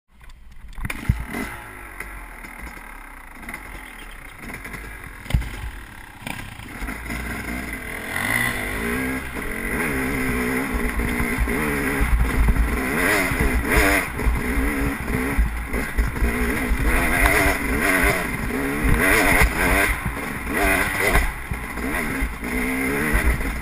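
KTM enduro motorcycle engine running and revving up and down as the bike rides a rocky dirt trail, getting louder from about eight seconds in. Two sharp knocks stand out in the first six seconds.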